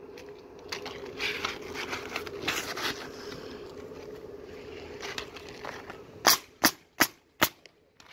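Asphalt shingles being slid and handled on the roof deck, with scraping and rustling. Then, about six seconds in, a pneumatic roofing nailer fires four nails in quick succession, about a third of a second apart, fastening a shingle.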